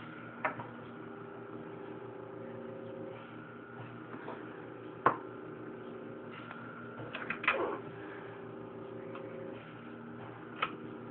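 Scattered clicks and knocks of hands working a vintage Singer Rocketeer sewing machine and shifting the fabric under its presser foot, over a steady hum. The loudest knock comes about five seconds in, with a quick cluster of clicks around seven seconds.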